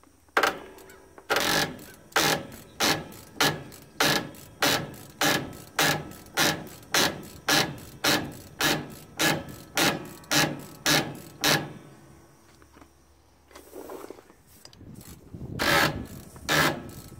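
Steady ratcheting clicks, a little over two a second, as the brake slack adjuster on a trailer axle is backed off with a wrench, rotating the S-cam to make room for the new brake drum. The clicking stops about twelve seconds in and starts again near the end.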